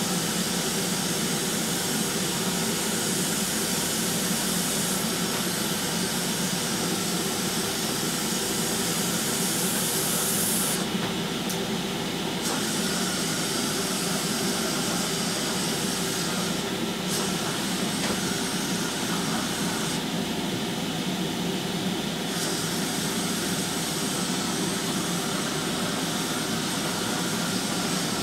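Steady machine noise with a loud hiss over it. The hiss cuts out and comes back several times, as a trigger released and pressed again would make it.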